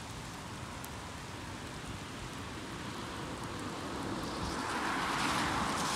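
Steady rain falling on wet pavement, with the hiss of a car's tyres on the wet road swelling louder over the second half as it approaches.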